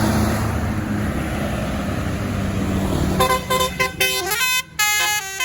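A tour bus's engine running, then about three seconds in a telolet basuri musical horn starts playing a quick tune of short notes stepping up and down in pitch.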